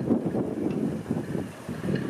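Wind buffeting the microphone: a gusty rumble that rises and falls irregularly.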